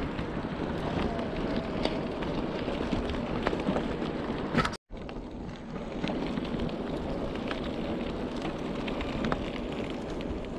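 Steady wind noise on the microphone mixed with the rumble of bicycle tyres rolling over a track while riding, with a few faint clicks. The sound cuts out completely for a moment a little under five seconds in, then resumes.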